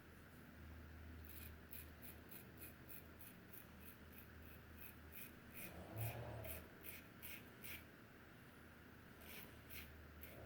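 Double-edge safety razor (Gillette Heritage with a Personna Red blade) scraping through stubble in quick, short strokes, about three a second. The strokes pause briefly, then a few more follow near the end. They are faint, with a brief low hum near the middle.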